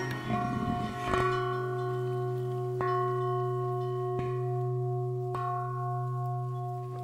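Background music: a steady low drone with four bell-like strikes about a second and a half apart, the tones of each strike ringing on.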